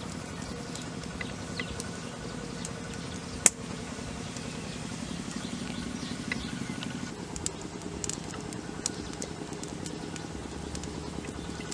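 Small wood fire crackling under a clay cooking pot, over a steady low rumble, with one sharp knock about three and a half seconds in.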